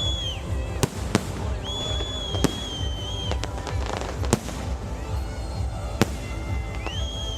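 Fireworks display: shells bursting in about five sharp bangs spread over several seconds, with high steady whistles that each last about a second. A low rumble and music run underneath.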